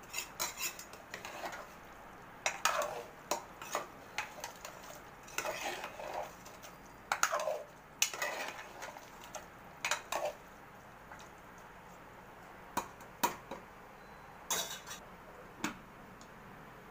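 Steel ladle scraping and clinking against the inside of an aluminium pressure cooker while stirring thick chickpea curry, in irregular strokes. Near the end come a few separate sharp metal clinks as the cooker lid is fitted.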